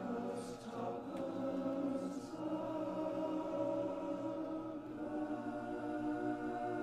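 An a cappella chorus of some forty singers singing held chords together, with no instruments. Brief hissing consonants come about half a second and two seconds in.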